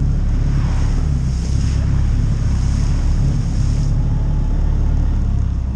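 Off-road vehicle engine running steadily as it drives through a muddy trail puddle. Water splashes under the tires and stops about four seconds in, with wind buffeting the microphone.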